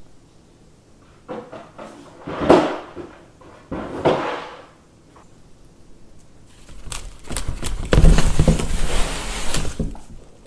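Cardboard scraping and rustling as a cat pushes through a hole cut in a cardboard panel. Two short scrapes come in the first few seconds, then a longer, louder stretch with sharp scuffs lasts about three seconds until the cat comes out.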